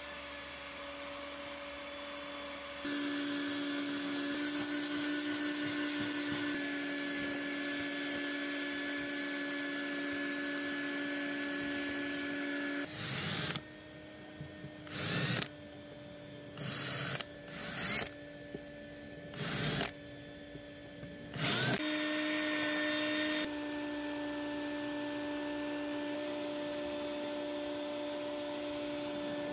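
A power tool's motor running with a steady whine, its pitch and level shifting abruptly a few times. In the middle stretch it comes in six short trigger-pulled runs, then runs steadily again, as in work on screw holes in a boat deck.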